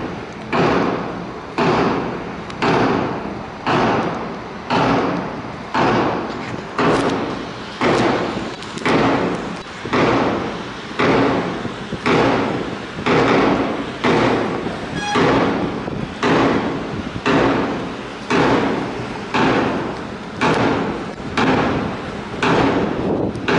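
A drum struck on a steady beat, about one heavy hit a second, each ringing out before the next. It keeps time for a drill.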